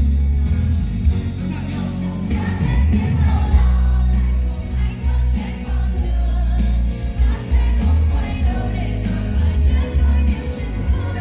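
Live pop music from a concert sound system: singers over a band with heavy, booming bass, heard from within the audience. The vocals come in more strongly about two seconds in.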